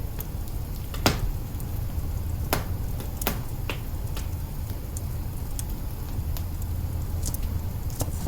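Wood fire burning in an open kitchen hearth: a steady low rumble of flame with scattered sharp crackles and pops, the loudest about a second in.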